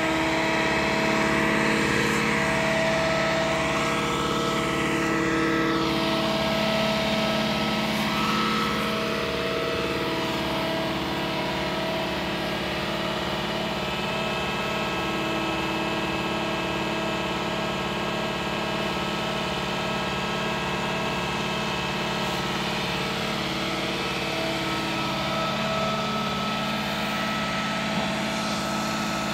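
Truck-mounted mobile crane's diesel engine running under load, with a steady whine over a low pulsing drone; the pitch rises and falls a little in the first several seconds, then holds steady.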